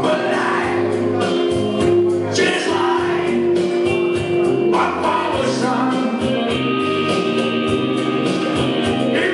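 A man sings live into a handheld microphone over instrumental backing, holding long notes.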